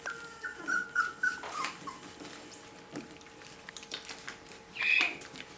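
Four-week-old Rhodesian Ridgeback puppies whimpering: a run of high whines in the first second and a half that step down in pitch, then scattered small clicks, and one sharp squeal about five seconds in.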